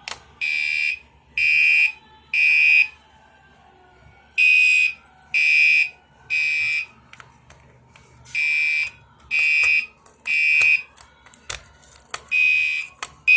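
Fire alarm horn sounding the temporal-three evacuation pattern: three half-second buzzy blasts, a pause, then the next group of three, repeating every four seconds. A few sharp clicks near the end.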